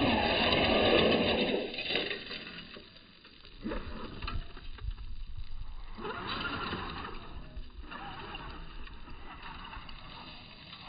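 RC formula offroad buggy's motor whining and its tyres churning loose gravel as it attacks a steep slope and tumbles back down. Loud for the first two seconds, then it drops away and comes back as fainter bursts of throttle.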